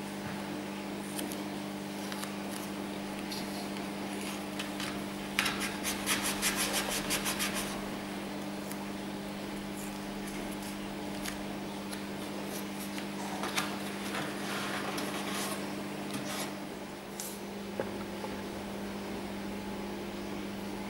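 Masking tape pulled off its roll, a rapid run of ripping clicks lasting about two seconds, about five seconds in. Softer rustling of torn tape pieces being handled and pressed on follows, and a steady low hum runs underneath.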